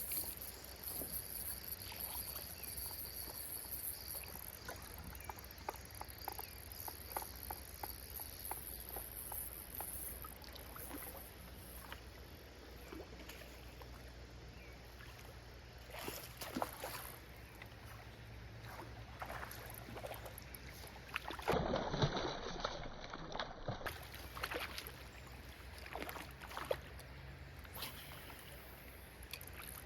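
Outdoor creek ambience: a high insect buzz that fades after the first few seconds, with scattered small splashes and knocks of water throughout and a louder burst of them a little past the middle.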